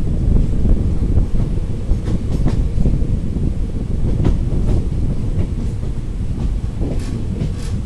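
Passenger coach running at speed, heard from an open door or window: a heavy, steady low rumble of wheels on track, with several sharp clicks as the wheels pass over rail joints.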